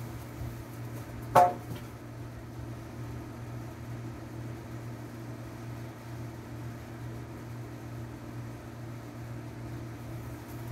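A single sharp knock with a brief ringing tail about a second and a half in, over a steady low hum.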